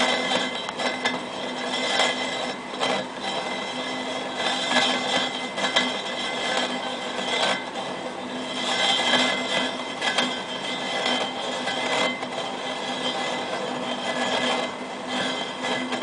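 Suzuki GS1000 front wheel spinning on a truing stand: a steady whirring hum that swells and fades every second or two, with a few sharp knocks.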